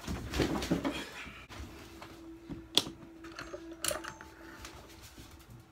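Rustling as a person moves about close to the microphone, then two sharp clicks, about a second apart, over a faint steady hum.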